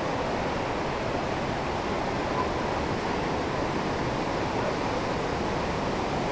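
Steady rush of a waterfall's water, an even, unbroken noise.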